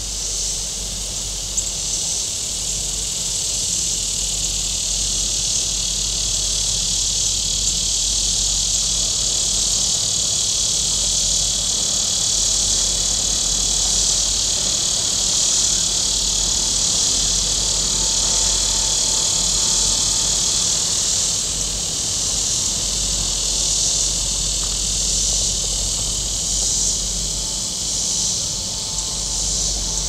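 A chorus of cicadas buzzing steadily and high-pitched, swelling into rhythmic pulses about once a second near the end.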